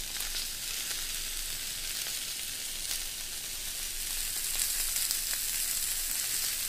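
Seasoned pork chops sizzling on a round electric indoor grill: a steady high hiss with scattered small crackles.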